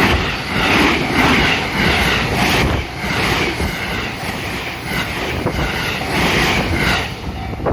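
JR Kobe Line train passing over a level crossing, its wheels clacking rhythmically over the rail joints.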